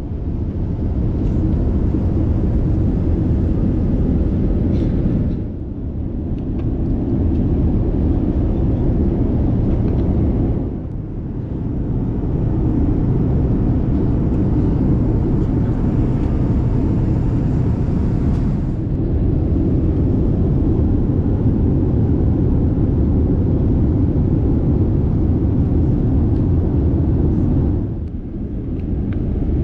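Steady low rumble of a Boeing 787-9's engines and airflow heard inside the passenger cabin. It briefly dips three times, about 5, 11 and 28 seconds in.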